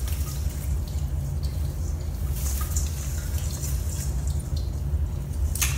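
Steady low hum under scattered light ticks and rustles from a cat moving in the branches of an artificial Christmas tree, with one sharper rustle near the end.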